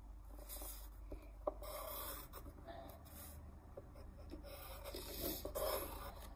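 Drawing strokes scratching on paper: a few short scratchy passes, near the start, about two seconds in and again near the end.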